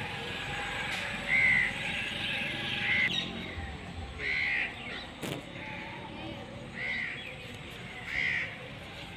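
A bird calling repeatedly outdoors: five short, separate calls about a second and a half apart, with a single click near the middle.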